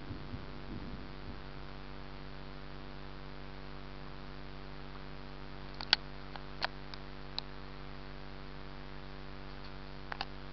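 Steady electrical hum made of several fixed tones, with a few sharp clicks about six seconds in and again near the end. A low rumble of thunder fades out in the first second.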